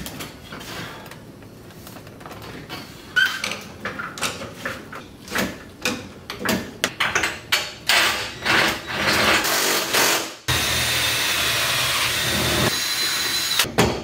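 A hand ratchet and tools clicking and knocking on metal while roll-bar mounting bolts are tightened, the clicks coming in quick runs. About ten seconds in, a power tool starts and whirs steadily for about three seconds, then more knocks.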